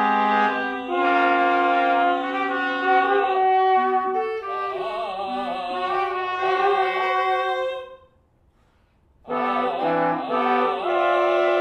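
Chamber quartet of baritone voice, trumpet, bass clarinet and trombone sounding long held chords, with a wavering vibrato tone in the middle. The music stops for about a second around eight seconds in, then a new held chord begins.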